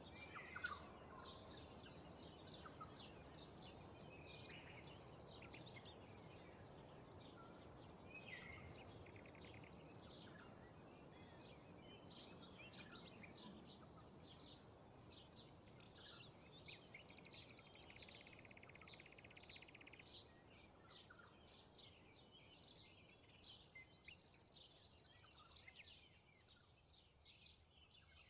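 Faint outdoor ambience: many small birds chirping and calling in short repeated notes over a soft, steady background of wind.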